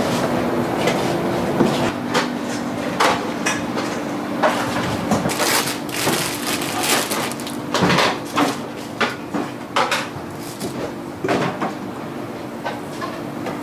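Irregular knocks and clinks of dishes, pots and utensils being handled in a restaurant kitchen, over a steady low hum.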